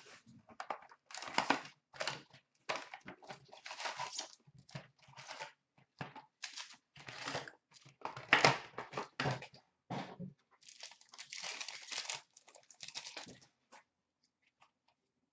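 A cardboard trading-card hobby box being torn open and its wrapped packs pulled out and handled. The sound is irregular rips, scrapes and crinkles, with a denser run of crinkling about two-thirds of the way through.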